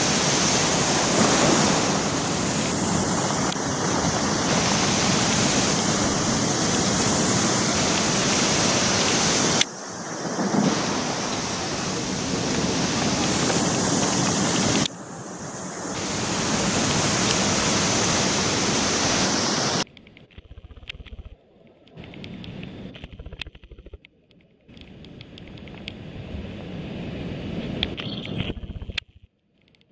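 Storm surf breaking and rushing over a rocky shore, a loud steady roar of water with wind on the microphone, broken by two abrupt cuts. About two-thirds of the way through it drops to a much quieter wash of shallow water with small clicks and splashes.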